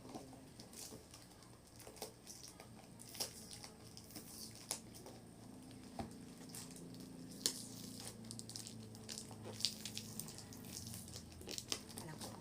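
Packaging being handled: crinkling and rustling with scattered sharp clicks and taps as items are unwrapped.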